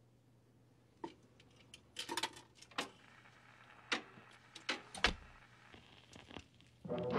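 Clicks and knocks of a record being handled and put on a radiogram's turntable, scattered from about a second in; music starts from the record just before the end.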